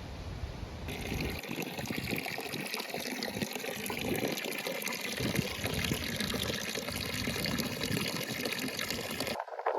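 Steady rush of running water, fuller from about a second in, cutting off abruptly near the end.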